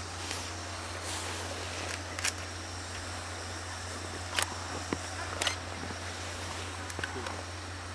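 Steady low hum and hiss from a C57 steam locomotive standing in the station, with a few sharp camera shutter clicks.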